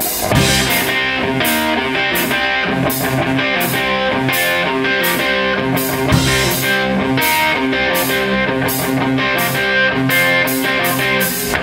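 Rock band playing live: electric guitar out front over bass and drums, with cymbals keeping a steady beat.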